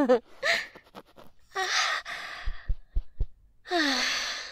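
A woman's voice making breathy, contented sighs and soft moans of pleasure, the last one falling in pitch. Four brief, deep, soft thumps come in quick succession about halfway through.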